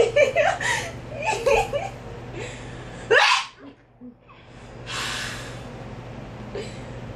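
A girl's sudden, loud burst of breath about three seconds in, followed about two seconds later by a softer breathy exhale. Brief girls' voices come before it.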